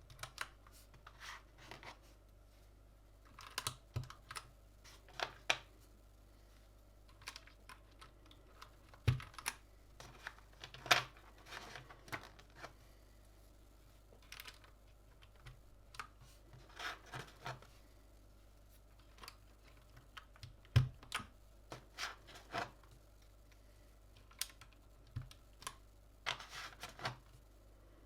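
Irregular plastic clicks and clacks from a Gamakay LK67 mechanical keyboard with Gateron red linear switches, coming in scattered small groups with pauses between them.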